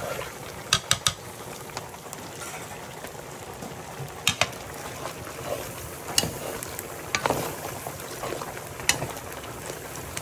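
Food frying in a pot over a wood fire: a steady sizzle with scattered sharp clicks and knocks, a quick run of three about a second in and single ones every second or two after.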